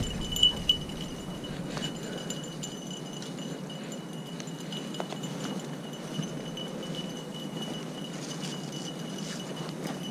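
Dry grass and brush rustling as a person pushes through it on foot, over a faint, steady high-pitched ringing tone.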